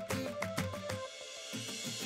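Background music with a steady beat; the bass drops out for a moment about halfway through, then comes back.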